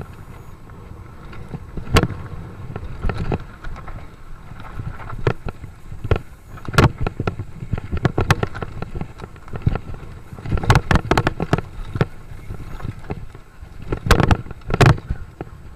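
Mountain bike descending a rough dirt trail: a steady rush of tyre and wind noise with irregular sharp knocks and rattles as the bike hits bumps, coming in clusters near the middle and near the end.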